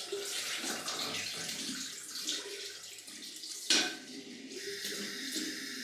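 Water running from a tap into a bathroom sink, with one sharp knock about four seconds in.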